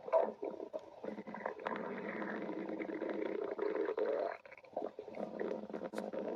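Stomach growling: long, irregular rumbling growls that break off for about half a second some four and a half seconds in, then start again.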